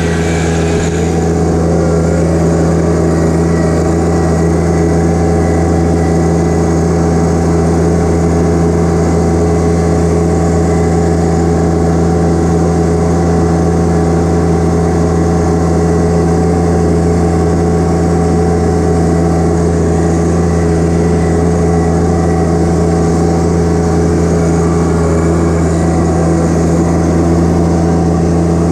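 John Deere 1025R compact tractor's three-cylinder diesel engine running steadily at a constant speed while the tractor drives along.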